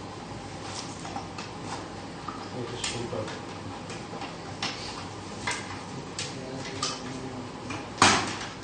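Irregular small clicks and taps of hard plastic printer parts being handled and worked apart, with one louder knock near the end.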